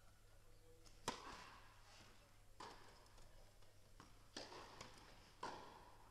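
Tennis ball hit back and forth with rackets in a rally: a serve about a second in, the loudest knock, then four more sharp knocks roughly every one to one and a half seconds, each ringing on in the large indoor hall.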